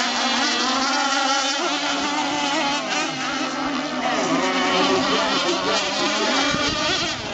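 Several radio-controlled racing boats running at speed, their motors making a high, insect-like whine whose pitch rises and falls as the boats turn.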